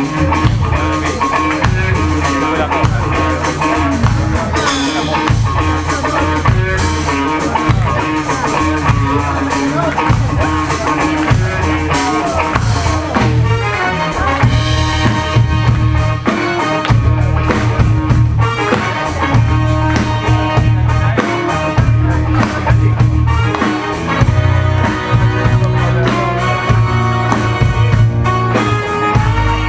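Rock band music with drum kit, bass and guitar playing a steady groove.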